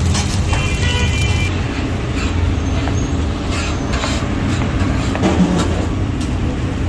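Street traffic: a steady low rumble of passing vehicles, with a short high tone about half a second in and scattered clicks and knocks.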